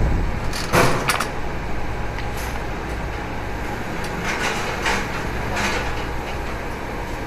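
CNC roll-up door spring coiling machine running: a steady low hum with five short, sharp noises, two in the first second or so and three more around the middle.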